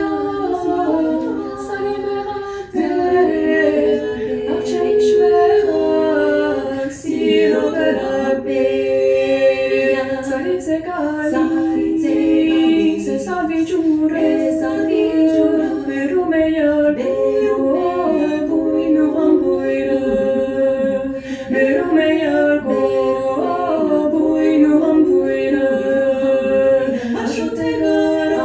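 Unaccompanied vocal music: several voices singing sustained, slow-moving lines together in harmony.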